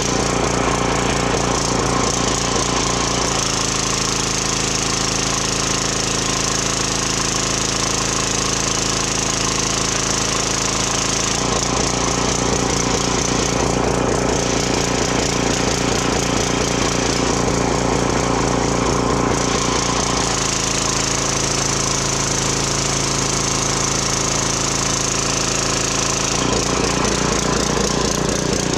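Briggs and Stratton pressure washer's small gas engine running steadily with the choke off, the carburettor freshly cleaned. Its sound switches between a smooth, even tone and a rougher, noisier running a few times, as the spray gun is used and let go.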